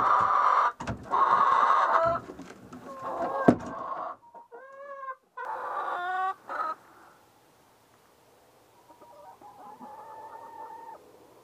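Hens clucking loudly together, with one sharp knock about three and a half seconds in. After a short break, single hens give a few drawn-out pitched calls, fainter toward the end.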